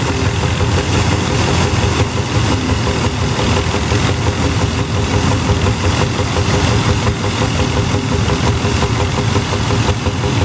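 Allis-Chalmers All-Crop 60 pull-type combine threshing wheat: its petrol-paraffin power unit runs steadily along with the threshing machinery, mixed with the engine of the 1943 Standard Fordson tractor towing it.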